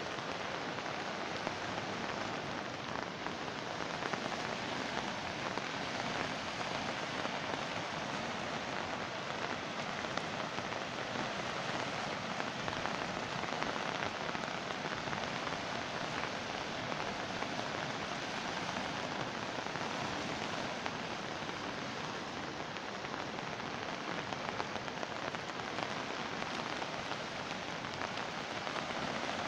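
Muddy river in flood rushing over shallow rapids: a steady, unbroken rush of water.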